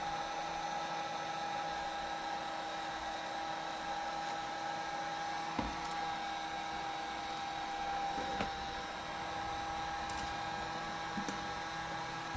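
Steady hum and whine of a small electric motor running, with a few faint taps about halfway through.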